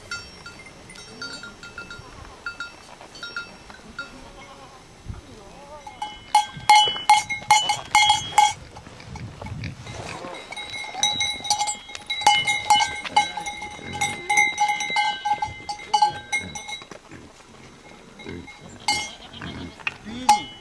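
Goat bells clanking irregularly as a herd of goats moves about, faint for the first few seconds and much louder from about six seconds in, with a goat bleating now and then.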